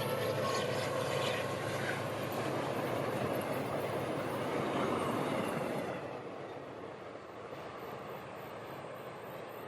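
A train running past on the rails, a steady rushing rumble that drops off about six seconds in and keeps fading as it moves away.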